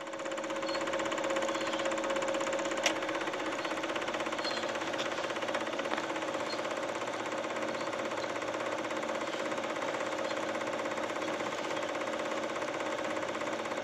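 Small film projector running: a steady mechanical whir with a fast, even clatter from the film-advance mechanism.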